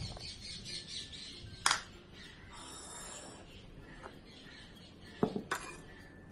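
A plastic mixing bowl and small serving bowls handled on a countertop: a sharp knock about two seconds in and a few more near the end. In between comes a soft hiss of flour being tipped into the bowl.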